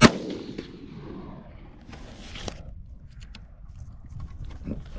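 A single rifle shot from a Palmetto State Armory AR-15 right at the start, trailing off in a short echo. Softer clicks and rustles follow over the next few seconds.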